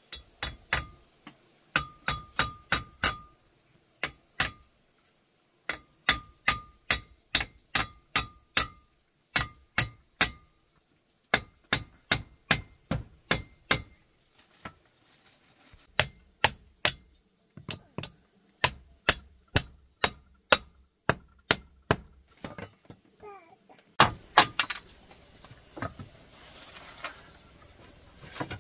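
Hammer blows, probably driving nails, in runs of about two to three strikes a second with short pauses between runs, many blows giving a brief metallic ring. Near the end a quick burst of blows gives way to a softer rustling noise.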